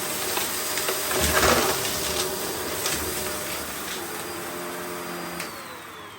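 Vacmaster Respira vacuum cleaner running over dirt and debris with a steady motor whine, louder for a moment about a second in. Near the end it is switched off and the whine falls in pitch as the motor winds down.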